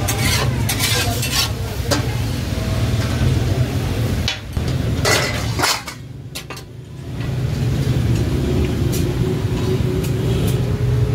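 Food sizzling and steaming on a large flat steel griddle (tawa), with loud hissing bursts near the start and again about five seconds in, over a steady low hum.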